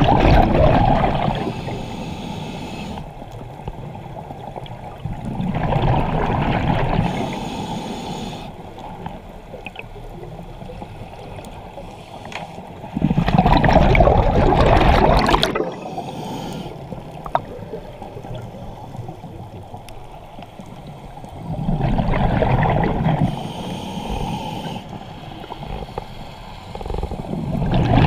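Scuba diver breathing through a regulator underwater. Exhaled bubbles gurgle out in a surge about every seven to eight seconds, five times, with quieter stretches between breaths.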